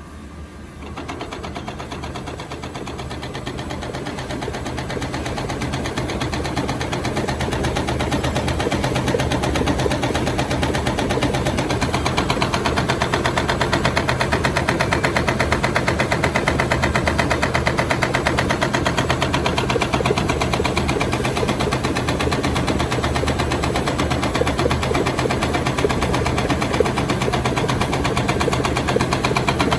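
Shrink-film cutting machine running: it starts about a second in, grows louder over the next several seconds, then runs steadily with a fast, even mechanical pulse.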